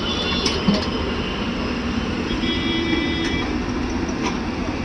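JCB 3DX backhoe loader's diesel engine running steadily, with a few sharp knocks and a brief high whine about two and a half seconds in.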